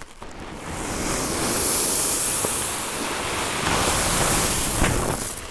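Ceramic tumbling media pouring from a bag into a vibratory tumbler bowl: a steady rushing hiss of many small stones that swells twice.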